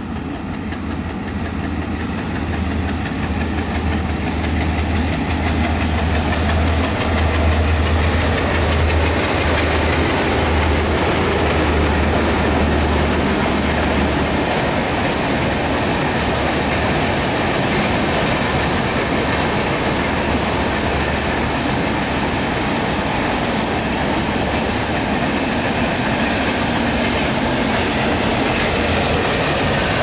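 WDP3A ALCO diesel locomotive passing with a low, pulsing engine throb that fades after about 14 seconds, followed by a long train of passenger coaches rolling across a river bridge with the steady rumble of wheels on rails. The sound grows louder over the first several seconds and then holds steady.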